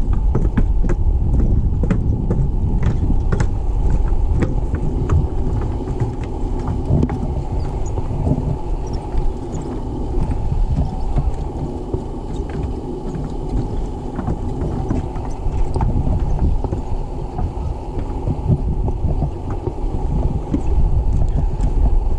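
Wind buffeting the camera microphone, a steady low rumble, with footsteps clicking on the wooden boardwalk planks in the first few seconds.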